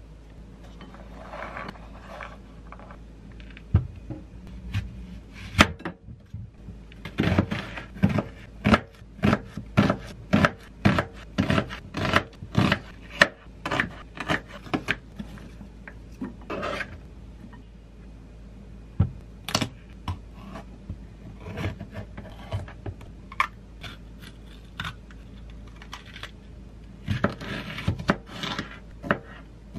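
A small kitchen knife chopping vegetables on a plastic cutting board: scattered cuts through corn kernels and onion, then a steady run of chopping strokes at about two a second, and later quick cuts through a red bell pepper. The knife tapping and scraping against the board is heard with each stroke.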